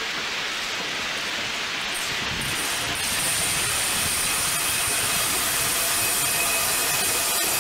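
DB Class 110 electric locomotive running slowly past at close range: a steady rushing noise with a high thin whine. It gets louder about three seconds in as the locomotive draws level.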